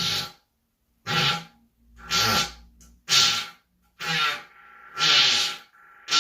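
A series of short farts, about one a second, each a brief airy, raspy burst.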